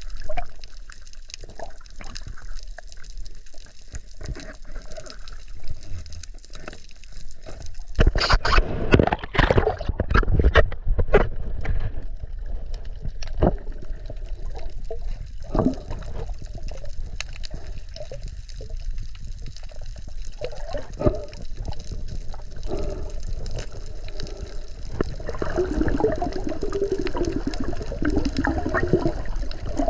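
Water sloshing and bubbling around the camera, with a louder stretch of splashing and knocks about eight seconds in.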